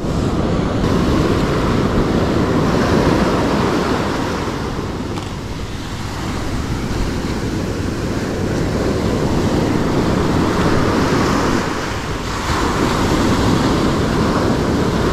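Ocean surf breaking and washing up the sand close to the microphone, swelling and easing in slow waves, with wind rumbling on the microphone.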